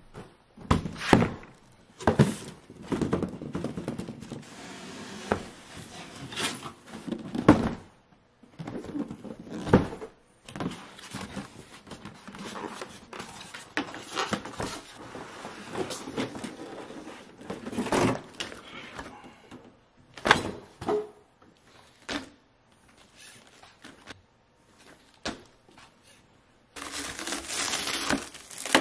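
Cardboard box and foam packaging being handled: a series of thunks, knocks and scrapes as the box is opened and its foam insert lifted out. Near the end, a steady loud crinkling of clear plastic wrap on the RC truck.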